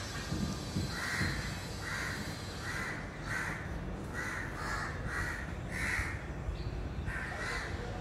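A crow cawing repeatedly: about ten short caws in irregular runs, starting about a second in.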